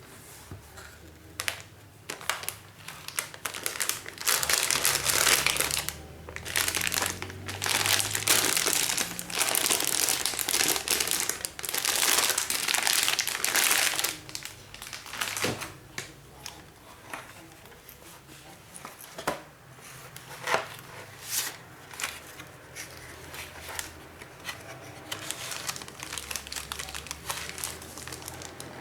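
Packaging crinkling and rustling as it is handled during a motherboard unboxing, in several long stretches in the first half, followed by scattered clicks and light taps.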